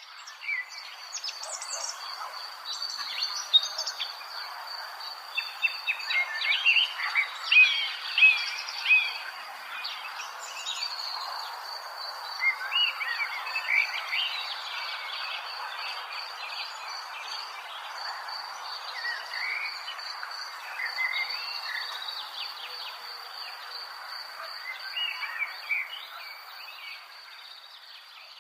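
Birds chirping and calling, busiest a few seconds in, over a steady high-pitched insect trill and a soft, even hiss.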